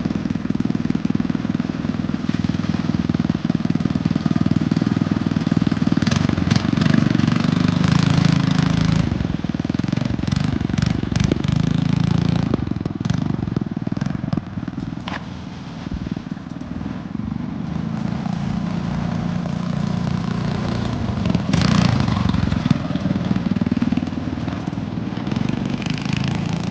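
Small horizontal-shaft petrol engine of a homemade motorized scooter running under load as it is ridden, its pitch rising and falling with the throttle, with scattered sharp crackling clicks partway through.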